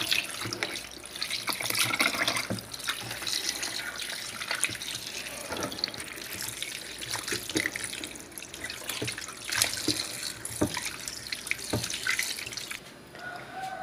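Tap water running into a metal pot of cut-up offal and sausage as hands rub and turn the pieces to rinse them, with splashing and sloshing. The running water dies away shortly before the end.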